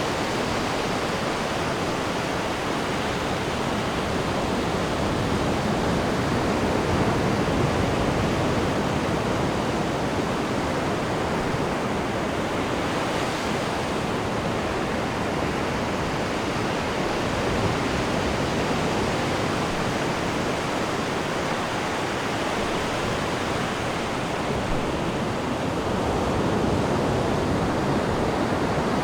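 Ocean waves breaking and washing on a sandy beach: a continuous surf rush that swells a little louder about a quarter of the way in and again near the end.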